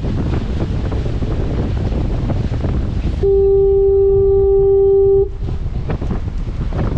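Foghorn sounding one steady, loud blast of about two seconds, a single held pitch that cuts off sharply, over heavy wind buffeting the microphone.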